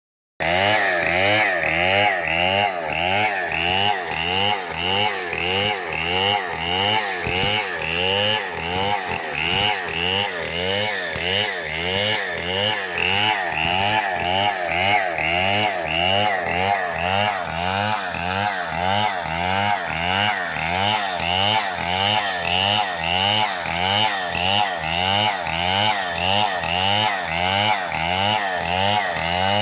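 Chainsaw engine running under load while cutting wood, its pitch rising and falling in an even rhythm about twice a second.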